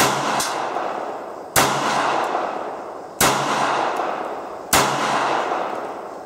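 Four pistol shots from a P-64 in 9x18 Makarov, fired one at a time about a second and a half apart, each followed by a long echo.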